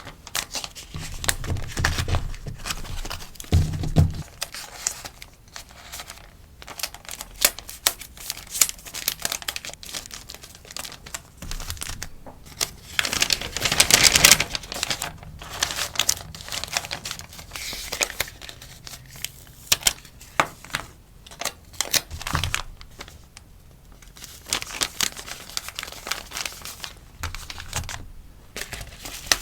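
Rustling and crinkling of sticker packaging handled at close range, with light taps and a few soft knocks near the start; a longer, louder crinkle comes about halfway through.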